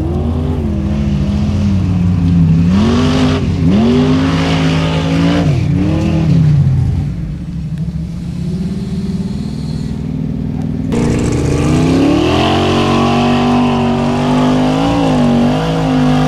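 Off-road competition Jeep's engine revving hard, its pitch dipping and climbing several times as the wheels spin through mud. After a quieter stretch it comes back at high revs, held there with small wobbles under load on a steep climb.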